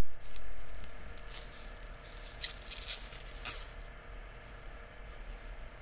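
Light handling sounds of a snack and its packaging: a burst of noise at the start that fades over about a second, then a few scattered short crinkles and clicks.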